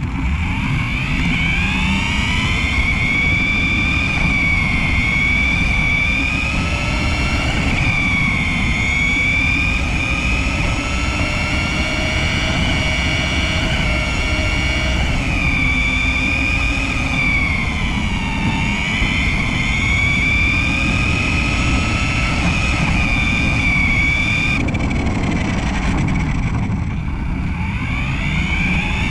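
RC car's drive motor and gears whining, the pitch rising and falling as it speeds up and slows, over the rumble and rattle of the tyres and chassis on the ground. The whine drops away about 25 seconds in and picks up again near the end.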